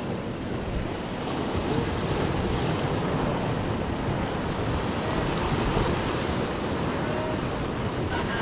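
Sea waves breaking and washing over the shoreline rocks, a steady surf noise, with wind buffeting the microphone.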